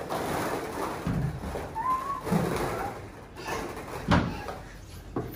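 Thumps and knocks of toddlers' hands and feet on a wooden slide and playhouse, the loudest about four seconds in. A child's short voice sound about two seconds in.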